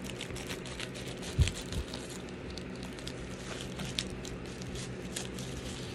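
Scissors snipping along the top of a plastic bubble mailer, with crinkling and rustling as the mailer is handled and pulled open. A short low thump about one and a half seconds in.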